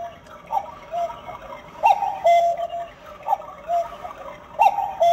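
Small plastic cuckoo-clock mechanism calling "cuckoo" four times at an even pace. Each call is a click followed by a higher note and then a lower, longer note.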